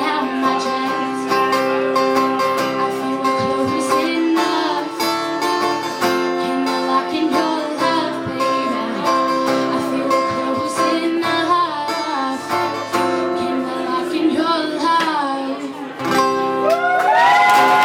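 A woman singing live over a strummed acoustic guitar, in sustained held notes. Near the end, high sliding vocal notes come in.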